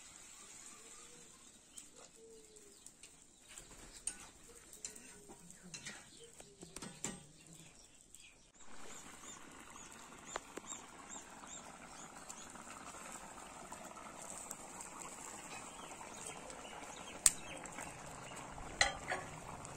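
Metal pots and utensils clinking now and then, then from about nine seconds in a fish curry bubbling steadily at the boil in an iron karahi, with a few sharp clicks near the end.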